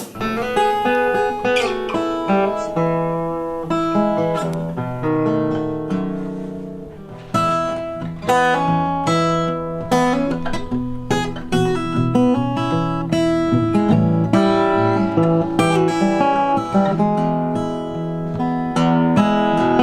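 Acoustic guitar playing a blues tune, picked notes over held bass notes with some strumming.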